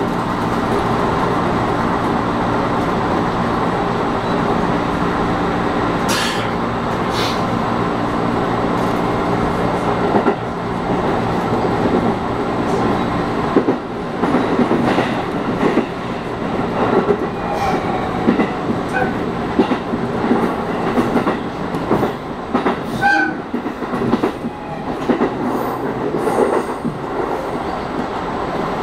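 JR East 211 series electric multiple unit running, heard from inside the front car: a steady motor and running hum for the first ten seconds or so, then wheels knocking over rail joints and points, with short wheel squeals as the train takes the curves through the pointwork.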